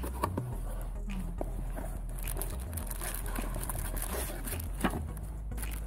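Hands rummaging through a cardboard box of packed items: light rustling and crinkling with a few small knocks, over a steady low hum.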